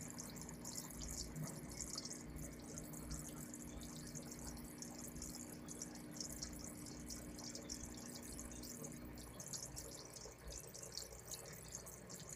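Faint bubbling and dripping of an aquarium's aeration, with fine air-stone bubbles breaking at the water surface in a dense patter. A low steady hum runs underneath and fades out about nine seconds in.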